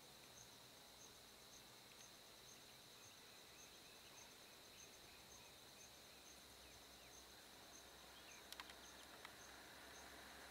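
Near silence: a faint, steady insect trill with a regular high chirp about twice a second, and a few faint clicks near the end.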